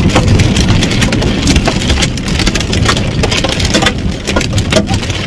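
Hail pelting a car's roof and windshield, heard from inside the cabin as a dense, irregular clatter of hits, with a steady low rumble underneath.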